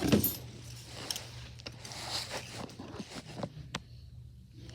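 Small handling noises of fidget toys being packed: rustling, scraping and a few light clicks, busiest near the start and thinning out.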